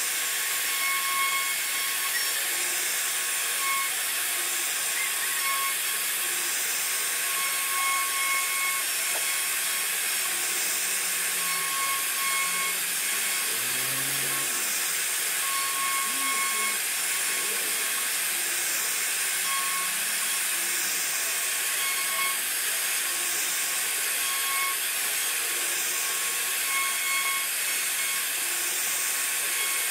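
CNC router spindle carving a relief pattern into a wooden panel: a steady high hiss with a thin whine that comes and goes.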